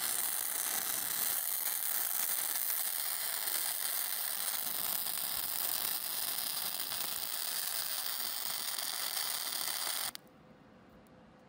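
Wire-feed welding arc running steadily on a steel shipping-container roof, a dense hiss as a bead is laid; it cuts off suddenly about ten seconds in.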